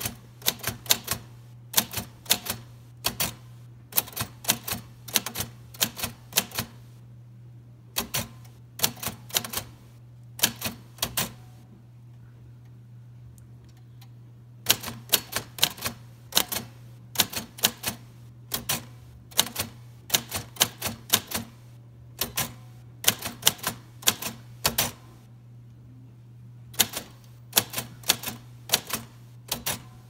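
1953 Royal Quiet De Luxe portable manual typewriter being typed one-handed: type bars striking the platen in uneven runs of sharp clacks, word by word. There are two longer pauses of a couple of seconds.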